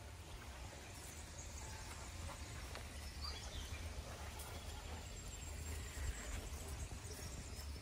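Outdoor ambience: a steady low rumble, with a few faint high chirps and scattered small clicks.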